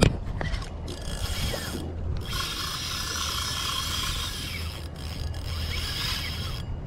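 Penn Slammer spinning reel being cranked, its gears whirring steadily, with short breaks about two seconds in and about five seconds in, stopping just before the end. A single sharp click comes right at the start.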